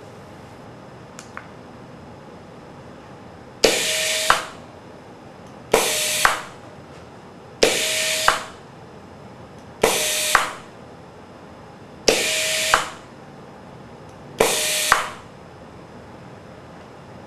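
Pneumatic air cylinder, its speed set by a Koganei iB-Flow automatic flow controller, stroking back and forth six times, about every two seconds. Each stroke opens with a sharp valve click, air hisses for well under a second, a second sharp knock marks the rod reaching the end of its stroke, and the exhaust hiss fades away.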